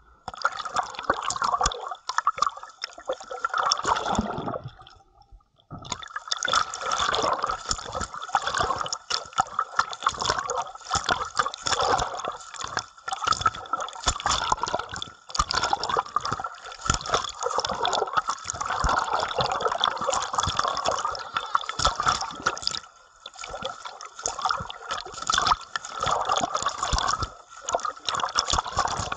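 Water splashing and sloshing against a camera held at the surface as a swimmer moves through the water, in uneven surges. It drops out briefly about five seconds in.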